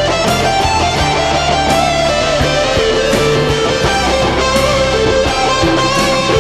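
Electric guitar solo over a rock band backing, the lead playing long held notes that waver and bend in pitch.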